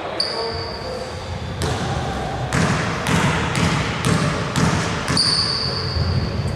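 A basketball bounced on a wooden hall floor, about seven bounces roughly two a second, as a player dribbles at the free-throw line before shooting. A high steady whistle-like tone sounds twice, once before the bouncing and once after it.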